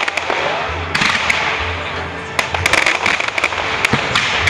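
Fireworks going off: clusters of sharp bangs and crackles over a continuous rushing hiss. Music accompanies the display underneath.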